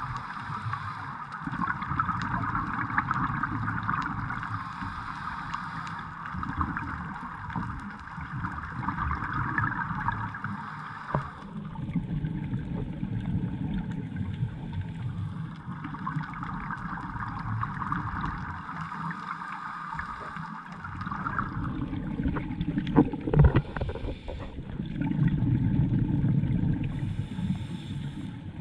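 Muffled underwater sound picked up by a camera in a waterproof housing: divers' scuba regulators bubbling and hissing in long stretches, with a few sharp clicks about two-thirds of the way through.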